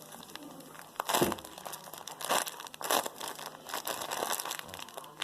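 Homemade squishy made from a bag of cotton balls being squeezed and handled, its bag crinkling in a string of separate crackles, the loudest about a second in.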